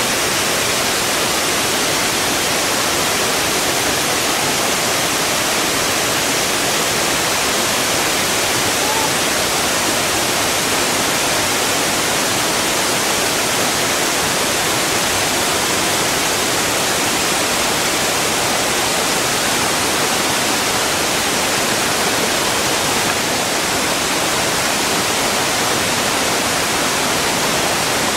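Small waterfalls cascading over rocks into a pool: a steady, unbroken rush of falling water.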